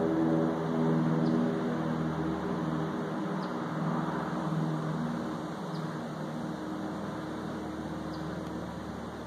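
Propeller airplane flying over out of sight, the low hum of its engine and propeller fading gradually as it moves away.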